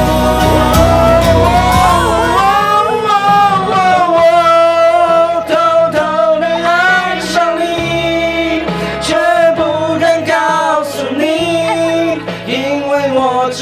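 Music: a song with a sung voice holding long notes over instrumental backing.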